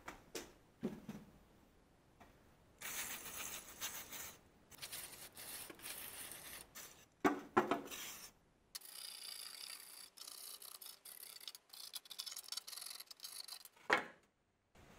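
Aerosol can of rust remover spraying onto a rusty axe head in several long hissing bursts. There are a few knocks, the loudest pair about halfway through, as the can or the axe head is handled.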